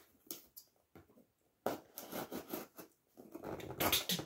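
A product box being handled and opened: a few light clicks, then rustling and scraping of the packaging from about two seconds in, getting louder near the end.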